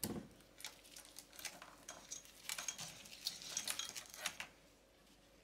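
Faint, irregular clicks and rustles of gloved hands handling the 3D printer's wiring and cable bundle on its frame; they stop about four and a half seconds in.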